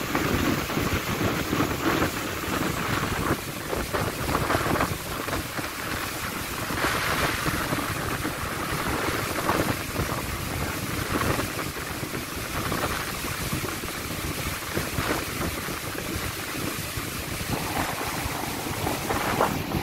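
Wind buffeting the microphone in gusts over a steady rush of water.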